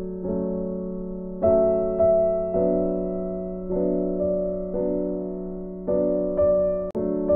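Background instrumental music: a keyboard plays sustained chords that are struck and fade away, changing about once a second.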